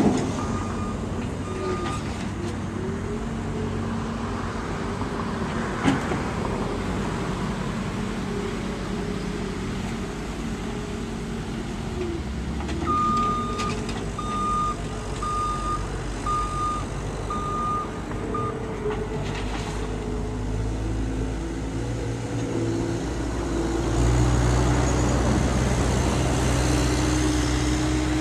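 CAT 262C skid-steer loader's diesel engine running under load, its pitch shifting as the machine works and rising louder near the end. A backup alarm beeps steadily about halfway through, and there is one sharp knock about six seconds in.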